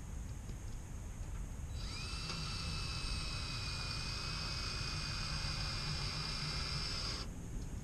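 Cordless drill spinning up about two seconds in and running steadily for about five seconds, a high whine that stops suddenly.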